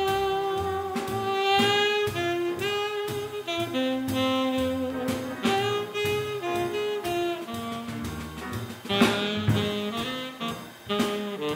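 Small jazz band playing swing: a saxophone leads a fast, wavering melody with vibrato over double bass, piano and a drum kit keeping time on the cymbals.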